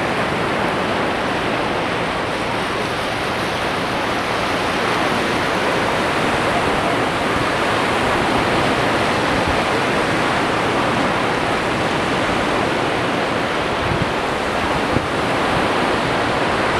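Sea surf washing onto the shore as a steady, unbroken rush of noise.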